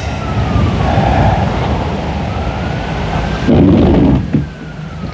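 An emergency-vehicle siren wails slowly in the distance, its pitch falling, rising and falling again. Under it, gusty wind rumbles on the microphone, with a louder burst about three and a half seconds in.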